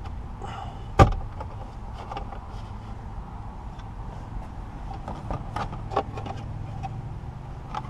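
Plastic knocks and clicks from handling the ratcheting center armrest assembly in the console: one sharp knock about a second in, then scattered lighter clicks and taps, over a low steady rumble.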